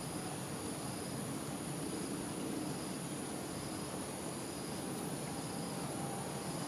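Steady high-pitched insect chorus, with a faint chirp repeating a little more than once a second, over a low even background rumble.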